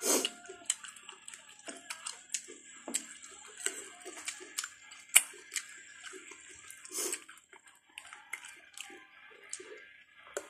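Close-miked eating sounds of soft, ripe papaya being chewed: irregular wet smacks, clicks and squelches of the mouth, the sharpest about five seconds in.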